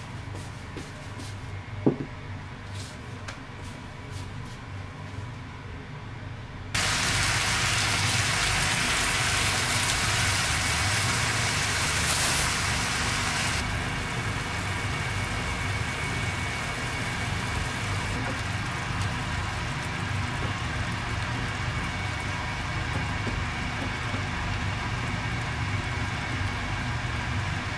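Chicken and sliced mushrooms frying in a pan on a gas stove, a loud steady sizzle that starts abruptly about seven seconds in. A low steady hum runs underneath throughout, and there is a single click about two seconds in.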